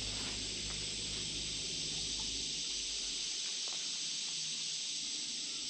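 Steady high-pitched insect chorus hissing continuously in summer woodland, with a low rumble underneath that fades out about three seconds in.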